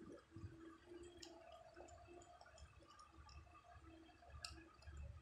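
Faint wet clicking and smacking of a Siamese mother cat licking her newborn kitten, with one sharper click about four seconds in.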